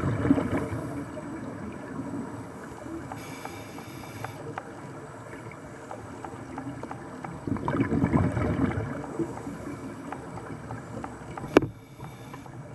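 Scuba breathing heard underwater: a burst of exhaled bubbles rumbling and crackling out of the regulator at the start, and again about seven and a half seconds in. There is a brief hiss about three seconds in and a single sharp click near the end.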